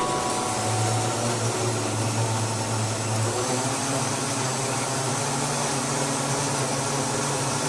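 Mondial countertop blender running at full speed, blending soaked rolled oats with water into oat milk: a steady motor hum under a whooshing churn of liquid. The hum rises slightly in pitch about three seconds in.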